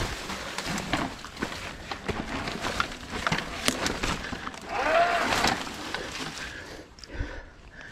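Giant XTC E hardtail electric mountain bike rattling and clattering down a rough, overgrown dirt trail, its tyres crunching over dirt and stones and grass brushing against it. There is a brief squeal about five seconds in.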